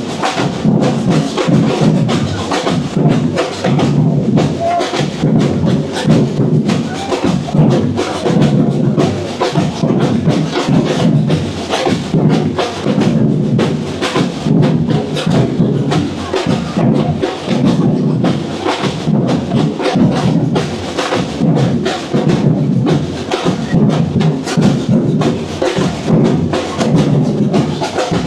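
Loud live street drumming with a steady driving beat and sharp knocking hits.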